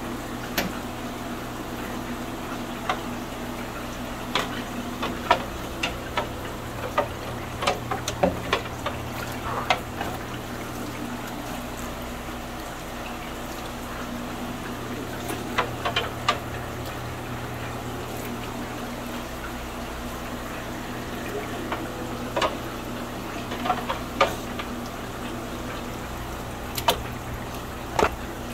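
Aquarium water splashing and dripping in short, irregular bursts as a fine-mesh fish net is swept through a tank and lifted out, and fry are tipped into a bucket of water. A steady low hum runs underneath.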